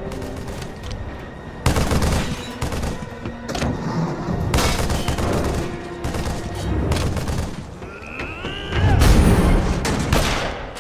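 Bursts of rapid gunfire over dramatic film music. The gunfire is loudest in volleys about two, five and seven seconds in. The heaviest volley, with a deep boom, comes around nine seconds in, just after a short rising whine.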